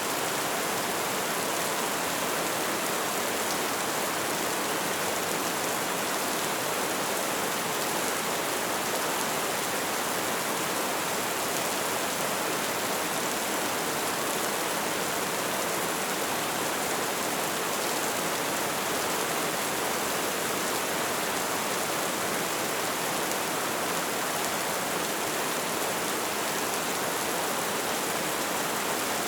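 Light rain falling in a steady, even hiss.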